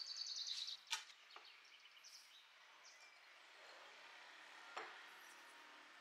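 Quiet kitchen handling sounds as fish are laid in an earthenware pot: a brief fast rattle at the start, a sharp click about a second in, and another click near five seconds.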